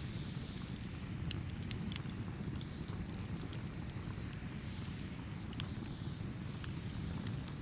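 Campfire burning with a steady low rumble of flames and scattered sharp crackles and pops of burning wood, the loudest pop about two seconds in.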